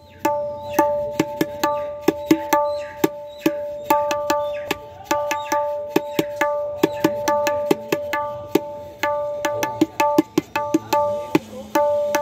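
Tabla dayan (the right-hand treble drum) played by hand in a quick, uneven run of strokes. Each stroke rings with a clear pitched tone.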